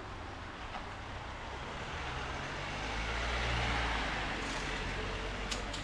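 A motor vehicle passes on a wet street: its engine rumble and tyre hiss swell to their loudest just past halfway, then fade, over a steady hiss of rain.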